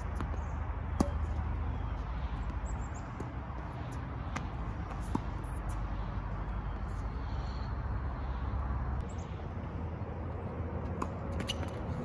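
Tennis ball struck by a racket during a rally: a sharp pop about a second in and another about five seconds in, with fainter hits between, over a steady low outdoor rumble and a few short high bird chirps.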